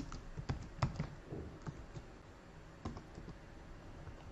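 Computer keyboard typing: a quick run of keystrokes, a pause of about a second, then a few more keystrokes.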